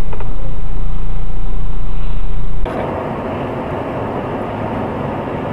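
Steady vehicle road noise picked up by dashcams: a loud, low rumble that switches abruptly, a little past halfway, to a quieter, hissier road noise.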